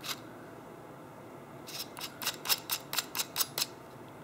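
Keyless drill chuck on a DeWalt DCD708 compact drill driver being twisted open by hand. Its sleeve gives a quick run of about ten sharp clicks, about five a second, starting a little under two seconds in.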